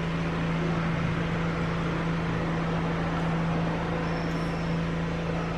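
A steady low machine hum with an even hiss underneath, unchanging throughout.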